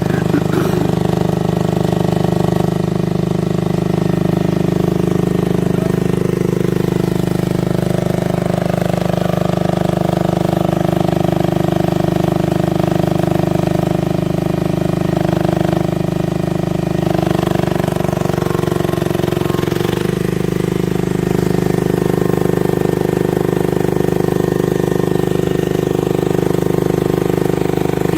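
A one-tonne mini excavator's engine runs steadily, its note shifting several times as it works.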